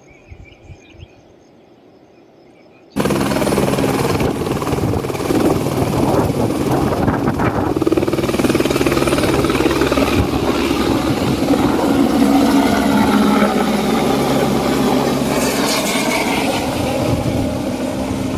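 A light helicopter's rotor and turbine engine running loud and close as it hovers low overhead and then flies off. It starts abruptly about three seconds in, after a quiet stretch with a few faint clicks, then holds as a steady, dense noise with low steady tones.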